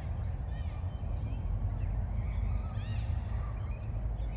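Short, arching bird calls repeating a few times over a steady low rumble.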